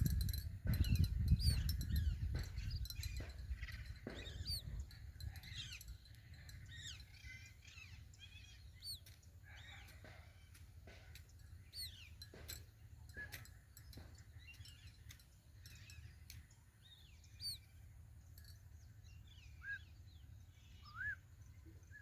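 A small bird chirping: short, high chirps scattered throughout, with a low rumble in the first few seconds.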